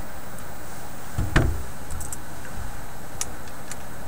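Small metal and rubber turntable parts handled on a workbench: one dull knock about a second and a half in, then a few faint light clicks, over a steady low background hum.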